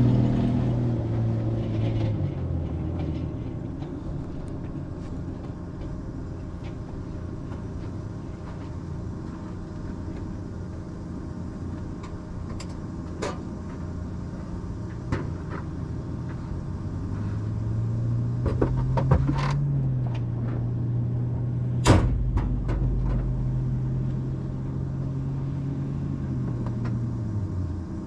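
Can-Am XRC side-by-side engine running in limp mode, which the title puts down to a bad drive belt. The engine settles low in the first few seconds, climbs to a higher steady speed about halfway through and holds there, then drops back near the end. A few sharp knocks are heard, the loudest about 22 seconds in.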